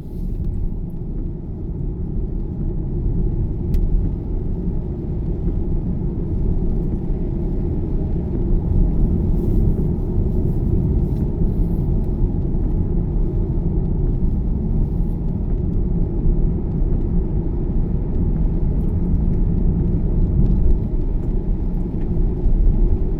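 Steady low rumble of a car's engine and tyres, heard from inside the cabin while driving along a rain-wet road.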